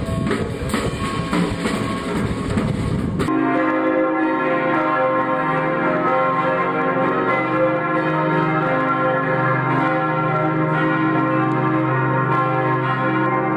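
Street noise for about three seconds, then an abrupt switch to church bells pealing together, a dense, steady ringing that carries on.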